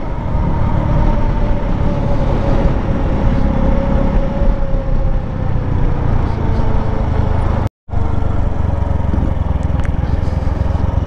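Motorcycle engine running steadily while riding, under heavy wind rumble on the helmet microphone. The sound cuts out completely for a split second about three-quarters of the way through.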